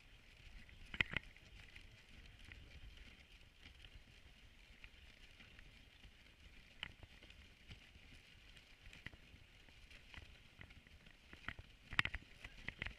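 A dog sled gliding over snow: a faint steady hiss from the runners, with scattered sharp knocks and creaks from the sled, the loudest about a second in and a cluster near the end.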